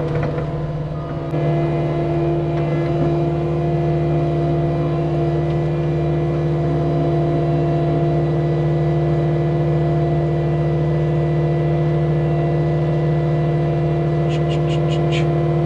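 Cat 259D compact track loader's diesel engine running steadily at a constant speed, heard from the operator's seat, with a short dip about a second in. A few short high clicks come near the end.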